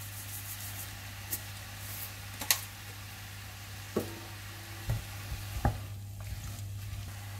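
Chopped vegetables and greens sizzling in a nonstick frying pan as a wooden spatula stirs them, with several sharp knocks of the spatula against the pan. A steady low hum runs underneath.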